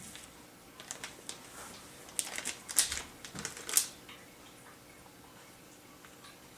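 Small plastic clicks and taps from handling a smartphone and its parts, a quick cluster of them a couple of seconds in, then a few faint ones.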